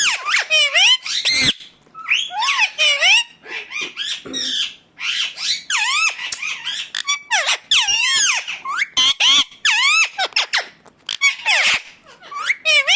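Indian ringneck parakeet calling: a rapid run of shrill squawks and whistled rising and falling notes, with brief pauses between bouts.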